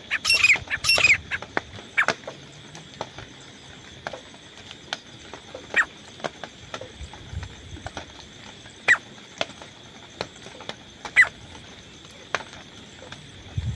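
A teetar francolin's loud, repeated harsh call ends about a second in, followed by scattered short, sharp call notes or clicks at irregular gaps.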